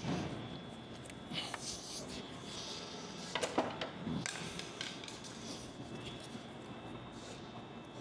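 Faint handling noises as a rubber intercooler boot and intake pipe are worked into place: light rustling with a few sharp clicks and knocks, the sharpest cluster about halfway through.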